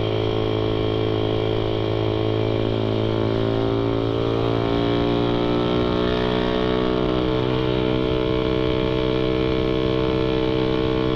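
Suzuki Satria FU 150's single-cylinder four-stroke engine running steadily as the motorcycle cruises, recorded from the rider's position on the bike.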